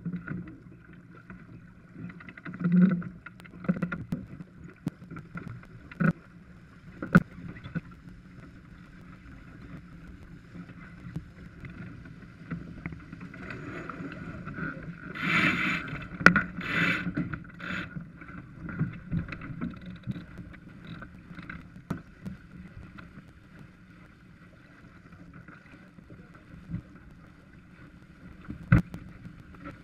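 Farr 280 sportsboat under sail: steady wind on the microphone and water rushing past the hull, with scattered sharp knocks and clicks from deck hardware and lines as the crew works the sheets. About halfway through there is a louder few seconds of clatter.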